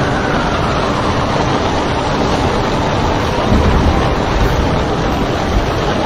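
Storm wind and heavy seas around a ship's bow: a loud, steady rush of wind buffeting the microphone over the roar of breaking water, with a heavier low rumble surging in about halfway through as a wave comes over the bow.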